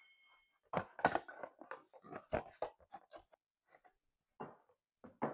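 Flour being scooped and measured out with a measuring cup: a quick run of short crunchy scrapes and taps, then a few scattered taps.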